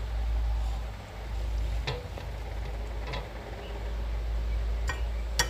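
A steady low rumble with a few faint light clicks and taps spread through, as an empty ceramic plate is handled and set out for serving.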